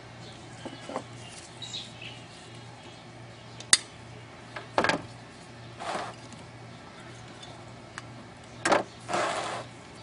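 Scattered clicks and knocks of hand tools on a refrigerator's metal parts as it is taken apart for its copper: one sharp click just before the middle and a cluster of knocks near the end, over a steady low hum.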